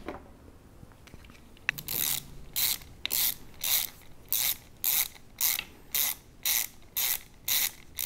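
Hand ratchet wrench being worked back and forth on a bolt. The strokes start about two seconds in and come about two a second, a dozen in all, each a short burst of ratchet clicking.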